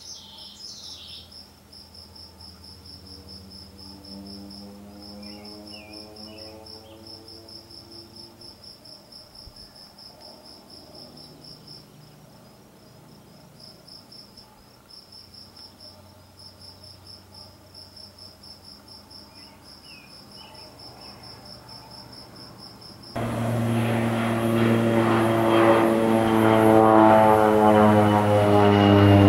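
Air Tractor AT-502B crop duster's PT6A turboprop droning at a distance, its pitch falling as it passes, over a steady pulsing chorus of crickets with a few bird chirps. About 23 seconds in it turns suddenly much louder as the plane flies low and close, its pitch dropping again as it goes by.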